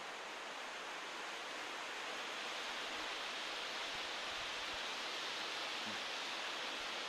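A steady, even hiss, growing slightly louder over the first few seconds.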